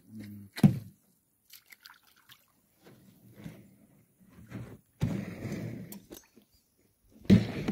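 Shallow muddy pond water sloshing and splashing as a man wades in and works his hands through the water and the bottom, in irregular bursts. The splashing is loudest from about five seconds in and again near the end.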